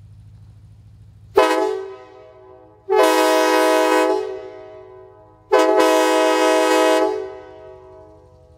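Homemade PVC replica of a Nathan K5LA five-chime train horn, heard from about 100 feet away, sounding three blasts: a short toot, then two longer ones. Each is a full multi-note chord that cuts off and trails away.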